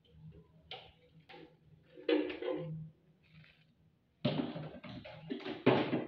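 Handling noises from an electric blender's jar: separate knocks and clatter, then louder, irregular rattling and knocking for the last two seconds. The blender motor is not running.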